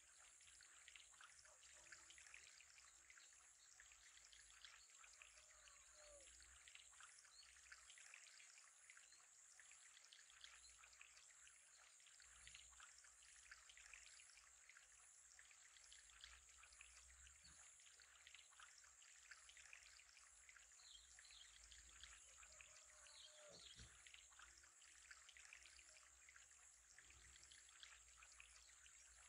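Faint, steady trickle of water in an aquarium, with a low hum underneath.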